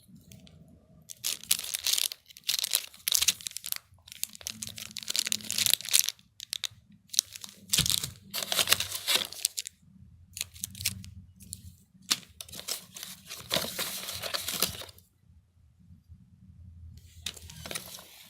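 Packaging being handled: repeated bursts of crinkling and tearing, with a quiet pause of a couple of seconds near the end.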